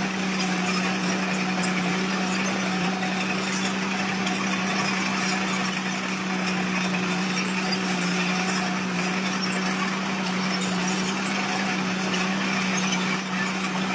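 Engine of heavy earthmoving machinery running steadily, a constant hum with no change in speed.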